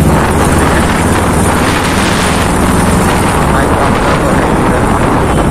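Sport motorcycle engine running steadily while riding, with wind rushing over the microphone.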